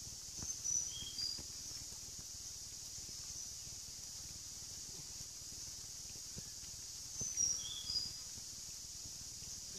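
A bird calls twice, each call a cluster of three or four short whistled notes at different pitches, about a second in and again about seven seconds in, over a steady high buzz of insects.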